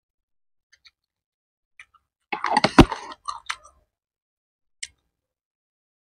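Close-miked mouth noises from a person eating: a few small, sharp mouth clicks, and a short, loud burst with a thump a little over two seconds in, followed by a couple of smaller ones.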